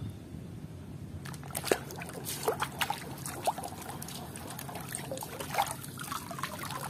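Water sloshing and splashing in a plastic basin as a plastic toy is scrubbed clean by hand, with irregular splashes and drips.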